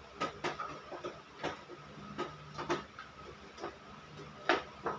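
A series of irregular light clicks and taps, about a dozen, the sharpest one near the end, over a faint steady hum.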